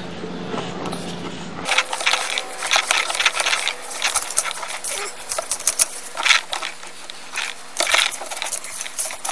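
Irregular light clicks and rattles over a faint steady hum, beginning about two seconds in, as a drain inspection camera and its push-rod are fed along the inside of a sewer pipe.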